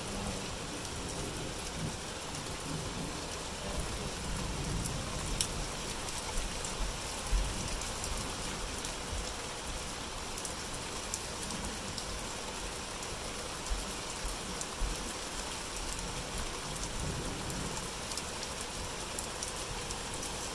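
Rainstorm pouring steadily on a lawn and a wooden deck, with occasional sharp ticks of drops striking nearby surfaces.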